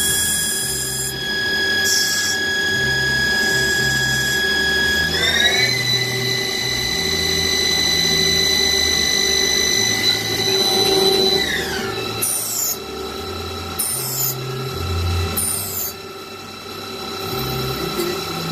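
Lathe with a gear-hobbing head running: a steady machine whine over a mechanical rumble. The whine steps up in pitch about five seconds in, then drops twice later on.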